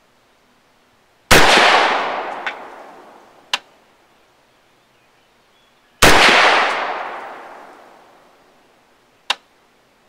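Two rifle shots from a Smith & Wesson AR-15, about five seconds apart, each echoing away over a couple of seconds. A short, sharp crack follows each shot a few seconds later.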